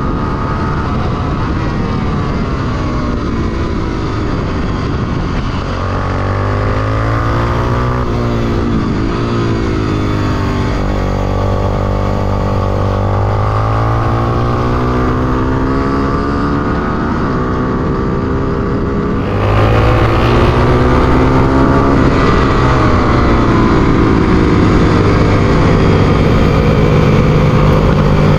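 Honda XR250 Tornado's single-cylinder four-stroke engine heard onboard under hard track riding, its revs rising and falling again and again through gear changes and corners. About two-thirds of the way in it gets louder as the throttle is held open.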